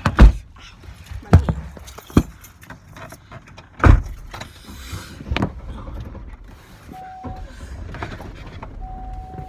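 Knocks and thumps of a phone being handled and someone shifting about inside a car, the loudest about four seconds in. Near the end a steady electronic tone sounds, briefly once and then again, held.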